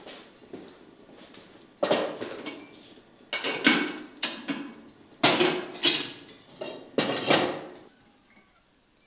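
Kitchen pots and utensils clattering: four bursts of knocks and clanks, each about a second long.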